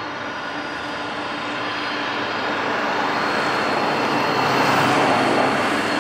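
Jet engines of a taxiing United Boeing 747-400 running at low taxi thrust: a steady hum and rush with a thin high whine. It grows louder through the second half, loudest about five seconds in.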